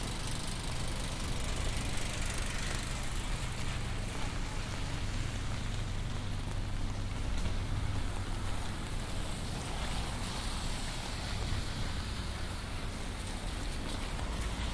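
Steady hiss of rain falling on a city street, under a low, steady rumble of traffic.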